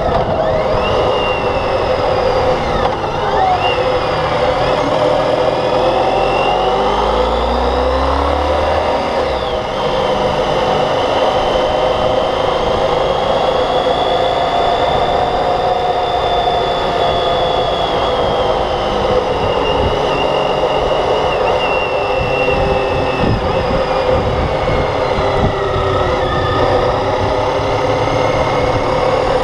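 Motorcycle engine running under way, its pitch rising and falling as the throttle and road speed change, over steady wind noise.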